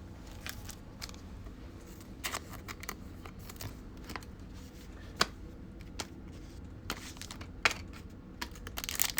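Trading cards being handled: faint clicks and flicks as cards are slid and flipped through one by one. Just before the end a plastic card pack wrapper starts crinkling.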